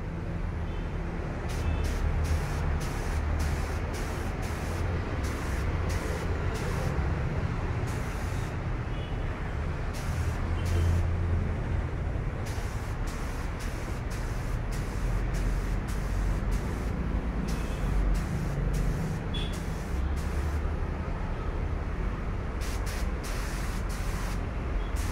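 A gravity-feed compressed-air spray gun spraying 2K primer in many short bursts of hiss as the trigger is pulled and released pass after pass, over a steady low rumble.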